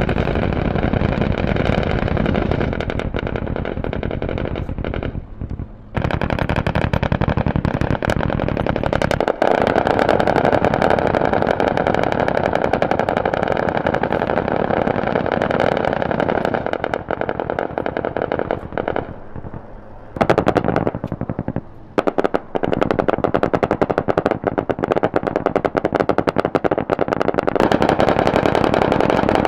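Rapid automatic gunfire, a continuous rattle of shots broken by a few short pauses.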